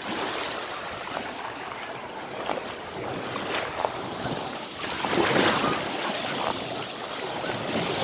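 Small Black Sea waves breaking gently and washing up a sandy beach, the wash swelling louder about five seconds in, with some wind on the microphone.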